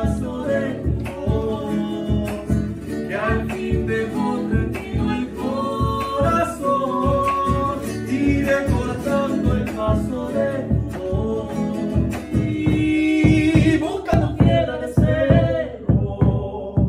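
A Latin American folk song performed live: singing over a strummed acoustic guitar, with a large double-headed drum beaten in a steady rhythm. There is a long held sung note about two-thirds of the way through.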